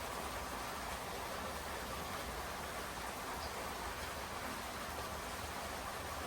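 Steady rainfall: an even hiss of rain with no single drops or other sounds standing out.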